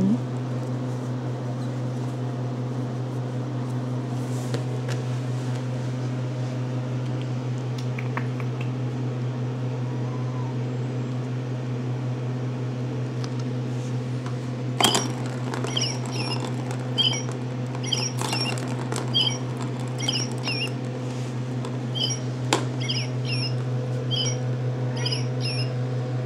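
Ragamuffin kittens giving a run of short, high squeaky chirps from about halfway on, with a couple of sharp knocks, over a steady low hum.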